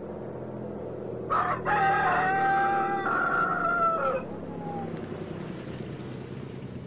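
A rooster crowing once, a long cock-a-doodle-doo lasting about three seconds, starting about a second in, over a steady low hum.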